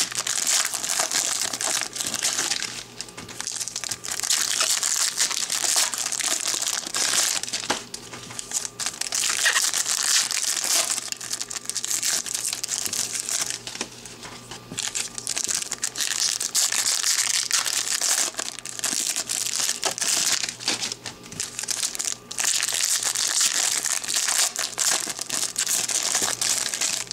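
Foil trading-card pack wrappers crinkling as packs are torn open and handled, an uneven rustle that swells and dips over and over.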